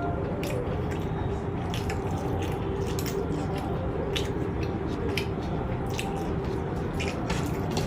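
Wet eating sounds: irregular chewing and mouth clicks over a steady low background hum.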